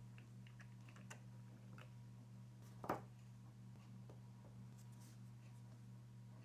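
Faint clicks and taps of small parts being handled during assembly of a 3D-printed RC car chassis, with one sharper click about three seconds in, over a steady low hum.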